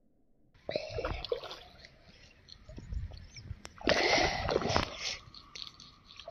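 A hooked fish thrashing and splashing at the water's surface as it is pulled in to the bank, in bursts, the loudest about four seconds in.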